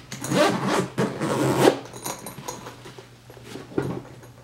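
The YKK zipper of a Veto Pro Pac Tech MC nylon tool bag is pulled open in two long rasps in the first two seconds, unzipping the bag's front panel. Quieter rustling of the fabric follows, with a brief knock near the end.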